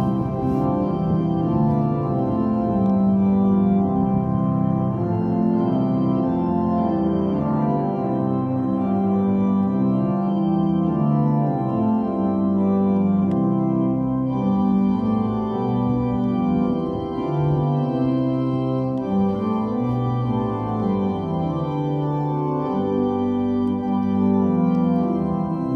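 Church organ playing slow, held chords that change every second or so.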